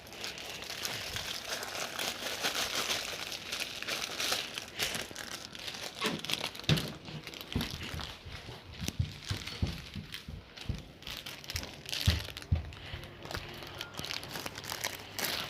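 Rubbish and wrappers being crumpled and rustled while they are gathered up, with scattered dull knocks and thumps in the second half.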